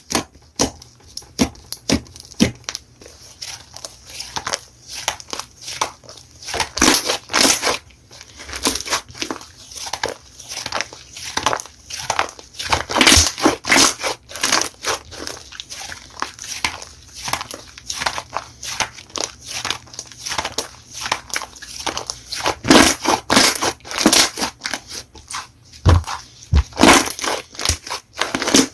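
Slime being squeezed and poked by hand, making irregular crinkly crackles and small pops.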